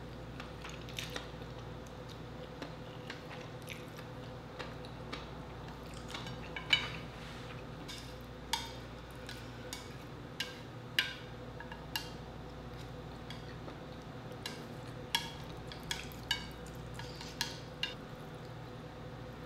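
Close-up eating of instant noodles with chopsticks: scattered short sharp clicks and wet mouth sounds from slurping and chewing, over a steady low hum.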